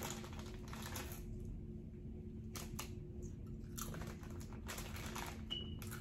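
Crinkling of a foil Doritos chip bag as a hand reaches in for a chip, in short irregular rustles.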